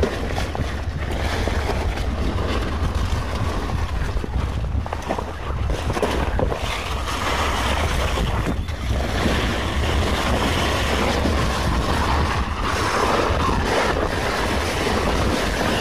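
Wind buffeting the microphone, a steady low rumble with a rushing hiss, along with large pumpkin leaves rustling as the vines are pushed aside.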